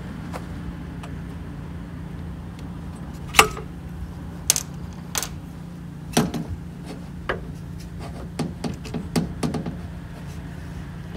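Metal ladder knocking and clinking against the side of a VW bus as it is gripped and handled, in sharp irregular knocks, the loudest about a third of the way in. A steady low hum runs underneath.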